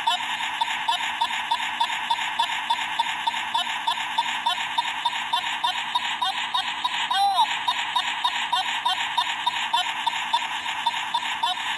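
Circuit-bent Elmo doll's voice playing through its altered circuit as a fast, high chatter of short chirpy syllables, several a second, its pitch set by the added pitch control. About seven seconds in, one slower swooping rise and fall breaks the chatter.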